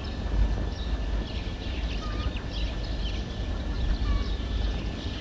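Birds chirping and calling over a steady low rumble, with one short call repeating about every two seconds.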